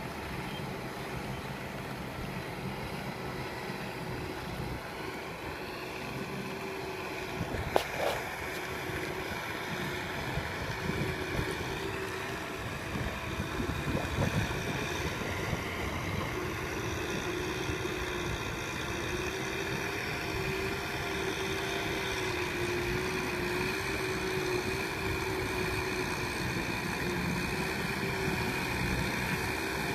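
Kubota M6040SU tractor's four-cylinder diesel engine running steadily under load as it pulls a rotary tiller through flooded paddy mud, its hum wavering slightly in pitch and growing a little louder as the tractor nears. A brief sharp click sounds about eight seconds in.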